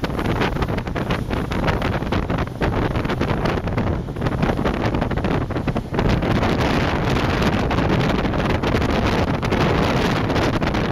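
Wind buffeting the microphone aboard a moving boat at sea, over the rush of water and the boat's running noise, a little fuller from about six seconds in.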